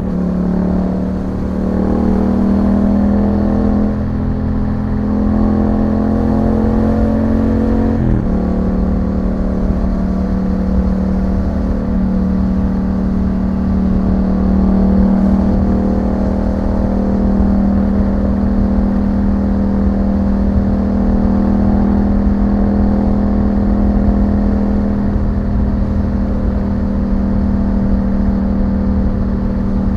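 2021 Yamaha MT-07's parallel-twin engine running through an Akrapovic exhaust while riding, holding steady revs. About eight seconds in its pitch drops suddenly, then it runs steadily again.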